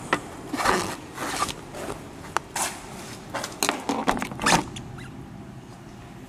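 Gear being handled by hand at a parked motorcycle: a string of rustles, swishes and a few sharp clicks as bags and straps are taken off the bike, dying down after about four and a half seconds.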